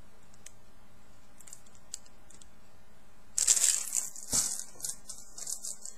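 Plastic-bagged comic books rustling and crinkling as they are handled and swapped, loudest from about three and a half seconds in, with a short knock partway through. A few faint clicks come before that.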